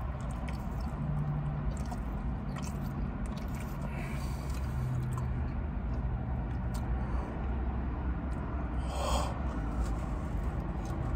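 A person biting and chewing Chicago-style stuffed pizza with small wet mouth clicks and smacks, and a short louder mouth sound about nine seconds in. A steady low hum runs underneath.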